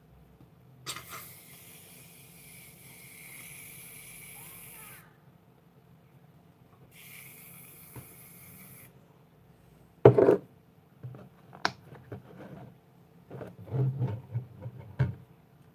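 An aerosol can hissing out a spray twice, one press of about four seconds and a shorter one of about two seconds. Then comes a sharp knock, followed by crackling, squelchy handling of a soft mixture.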